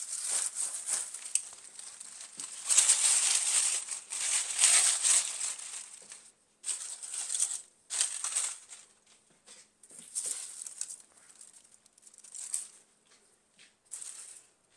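Dried corn stalks rustling and crackling in irregular bursts as they are handled and stood in a container, loudest a few seconds in.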